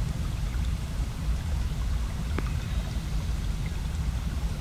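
Steady low rumbling noise with a faint hiss over it, and one faint click about two and a half seconds in.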